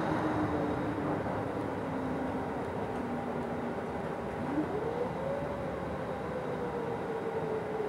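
Nova Bus LFS city bus under way, heard from inside: a steady rumble of drivetrain and road noise. About halfway through, the drivetrain note climbs quickly in pitch, then slowly eases back down.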